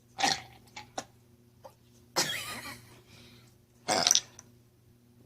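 A person burping several times after drinking a carbonated drink: short separate burps, the longest and loudest about two seconds in.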